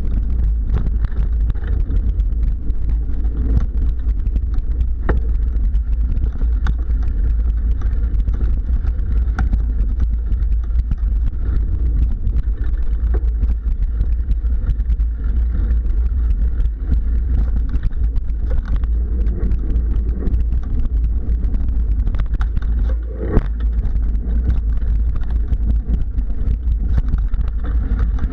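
Mountain bike rolling over a dirt singletrack trail, heard through a handlebar-mounted camera: a steady low rumble with frequent small rattles and clicks, and one sharp knock about three-quarters of the way through.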